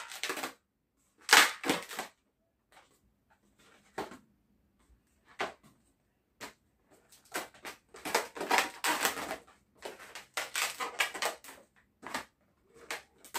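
Long latex modelling balloons being twisted and handled into a balloon rifle: irregular bursts of latex rubbing, separated by short quiet gaps and busiest in the second half.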